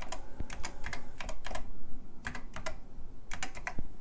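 Keys of a TRS-80 Model I keyboard being typed, in about six short runs of a few clicks each with brief pauses between them.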